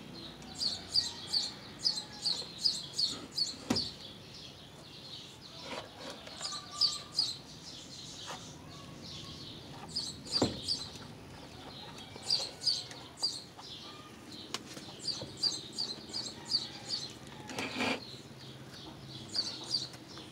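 A small bird chirping in quick runs of short, high, repeated chirps, about four a second, in bouts of a few seconds. Three or four sharp knocks come between them, from handling the pump's cable fitting.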